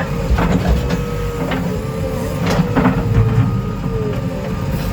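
Diesel engine of a JCB 3DX backhoe loader running steadily under load, with a thin hydraulic-type whine over it. Several sharp knocks come in the first three seconds.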